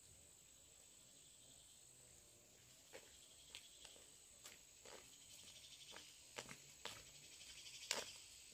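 Faint, steady high insect trilling, with footsteps and rustling that start about three seconds in and grow louder as a person walks closer on a dirt path.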